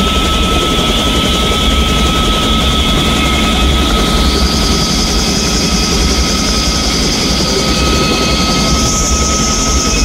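Vintage Bell 47 helicopter's piston engine and main rotor running, a loud steady drone with a deep throb and a thin steady whine. A higher hiss rises in pitch about four seconds in and again near the end.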